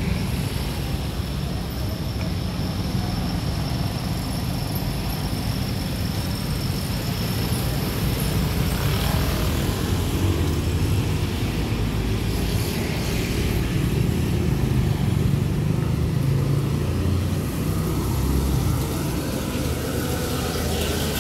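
Steady street traffic noise with a low rumble, a little louder about halfway through.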